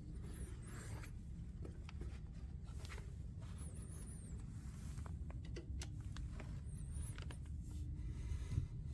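Quiet movement in a small room: scattered light clicks and rustles of footsteps and handling over a steady low hum, with a few short, high, wavering chirps at intervals.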